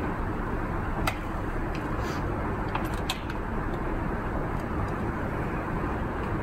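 Steady low rumbling background noise, with a few faint clicks about one and three seconds in.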